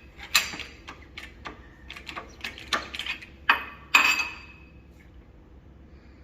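Metal clinking and knocking: a series of sharp strikes of steel tools or parts, the two loudest coming near the middle, the last of them ringing briefly before the sounds stop.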